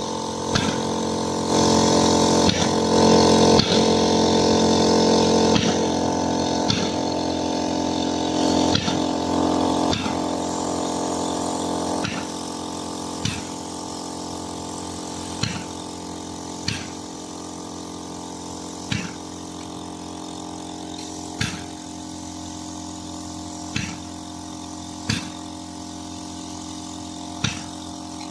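A machine running steadily with a humming drone, louder for about the first ten seconds, then settling lower with a sharp click every second or two.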